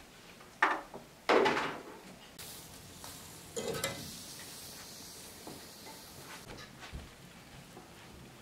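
A metal pan and a plastic colander set down on a wooden folding table: two sharp knocks a little under a second apart, the second the louder and ringing briefly. A faint steady hiss follows for a few seconds.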